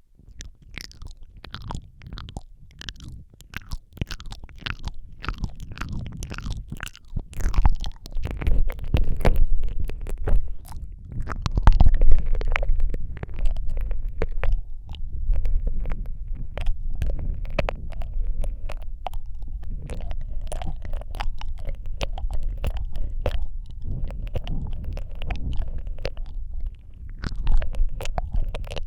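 ASMR mouth sounds made right up against a Rode microphone: a dense run of wet lip smacks, tongue clicks and licking, over a low rumble from close contact with the mic. The sounds start suddenly and grow denser and louder a few seconds in.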